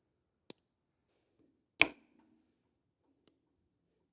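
A metal tool working at the old rod wiper in a hydraulic cylinder's gland: a faint click, then one sharp metallic clink with a brief ring about two seconds in, and a tiny tick near the end.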